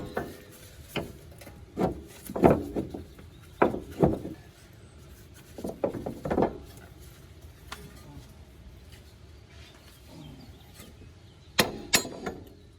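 Scattered metal knocks and clinks as the wishbone (strut fork) is worked off the bottom of a car's front strut, coming in short clusters with pauses between.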